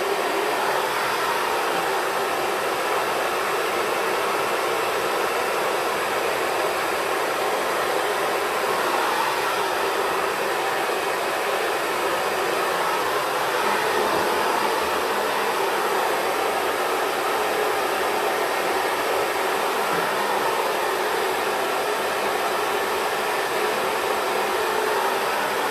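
Xtava Pro hair dryer blowing steadily.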